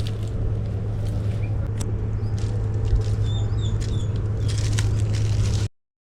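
Wind buffeting the microphone, a steady low rumble with scattered crackles, with a few short high chirps about three seconds in; the sound cuts off suddenly near the end.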